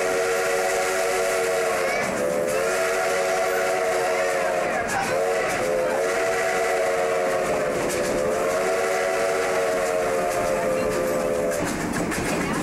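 Steam whistle of Sierra Railway No. 28, a Baldwin 2-8-0 steam locomotive, sounding four long blasts, each sliding into pitch as it opens, over the steady rush of the moving train. The last blast ends about a second before the train noise alone carries on.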